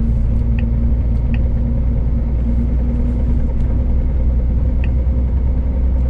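Scania S500 truck's V8 diesel cruising at a steady speed, heard from inside the cab as a constant low drone with road rumble and a steady hum.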